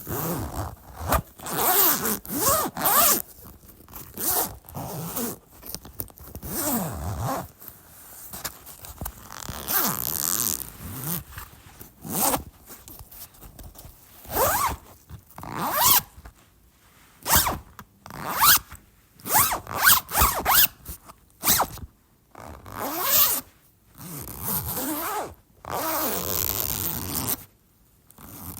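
A bag's zipper being pulled open and shut over and over, in a string of separate zips, some quick and some drawn out over a second or more, with short pauses between them.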